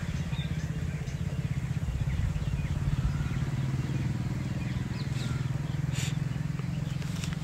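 An engine running steadily, a low pulsing drone, with faint small clicks and rustles as a camera bag is handled.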